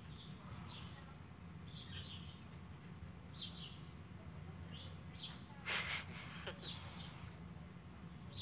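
Small birds chirping again and again, short falling chirps, over a steady low hum. About six seconds in, a short rushing burst of noise, the loudest sound here.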